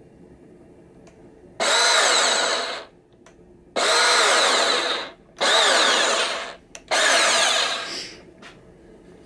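Makita 18 V cordless handheld bandsaw triggered four times with no workpiece, the motor and blade running up for about a second each time and then winding down.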